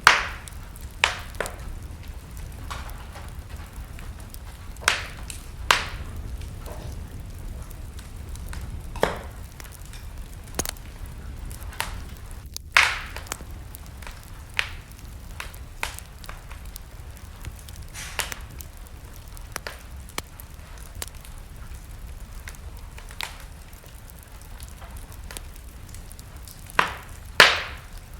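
Wood fire in a fireplace crackling: irregular sharp pops and snaps, a few loud ones near the start and near the end, over a steady low rumble of the flames.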